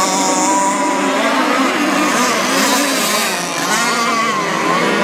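Engines of radio-controlled model hydroplane race boats running at high revs, a high whine with several pitches wavering and gliding up and down as the boats race.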